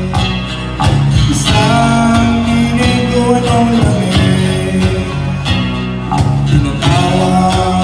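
Live band playing a song, with guitar and a steady percussive beat.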